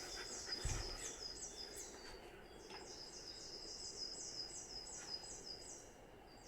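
Spring cicadas (haruzemi) calling in the forest: a steady rhythmic chorus of short, high, falling calls, about three a second from several insects. It breaks off briefly near the end and resumes. A soft low thump comes about a second in.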